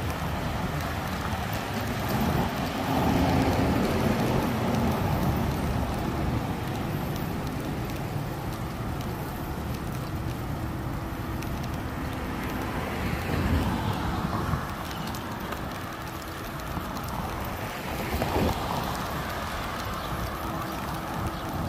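City road traffic: a steady rush of cars and tyre noise, with louder swells as vehicles pass, once midway and again near the end.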